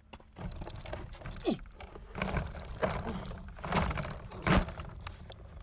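Bottles clinking and rattling in stacked plastic beer crates as the crates are picked up and hoisted, an irregular clatter of glass knocks.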